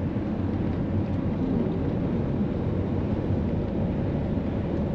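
Steady engine and road noise of a campervan, heard from inside its cab while it drives along.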